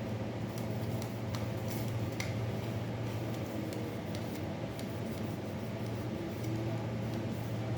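Scattered light clicks and ticks of small items being handled while powdered medicine is compounded, over a steady low hum.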